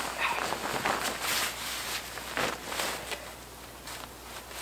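Nylon rain jacket rustling and swishing as it is pulled on and settled on the shoulders, several brushes in the first three seconds, then quieter as it is readied for zipping.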